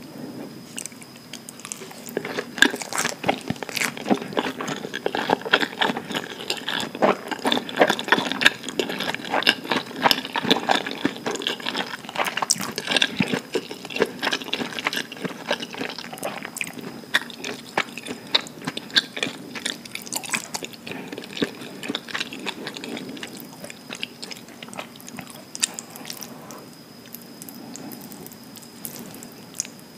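Close-miked chewing of a mouthful of kimbap with mayonnaise: a dense run of small clicks and smacks that eases off over the last few seconds.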